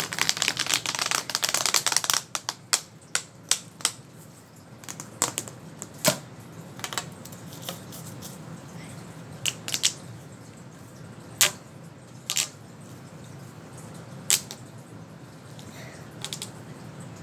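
Fidget toy being clicked by hand: a fast run of sharp clicks for about two seconds, then single clicks every second or two.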